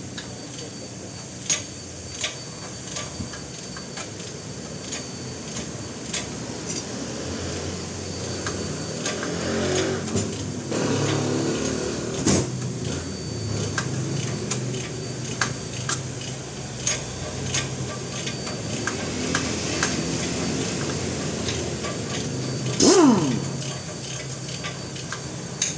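Metal tools and parts clinking and tapping as mechanics work, with scattered sharp knocks over a steady background hum and a louder metallic clatter near the end.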